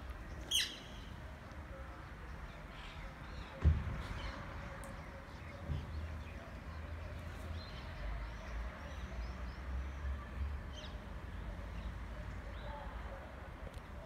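Parrots in the tree giving short, high calls: a sharp falling call about half a second in, then scattered brief calls. A single loud thump comes near four seconds in, and a low rumble follows later.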